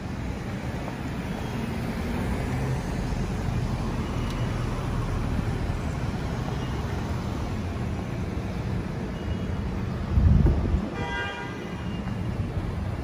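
City street traffic rumbling steadily. About ten seconds in comes a loud low rush lasting about half a second, then a brief high-pitched toot.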